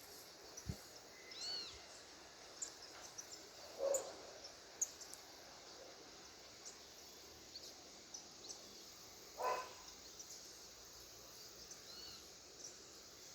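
Faint outdoor birdsong: scattered small chirps and a couple of arched whistled calls. Two louder, lower short calls come about four and nine and a half seconds in.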